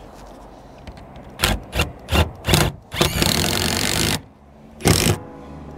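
Bosch cordless drill with a hex socket driving a roofing screw through a profile washer and rubber seal into corrugated iron roofing: four short bursts of the motor from about a second and a half in, then a steady run of just over a second around three seconds in, and one more short burst near the end.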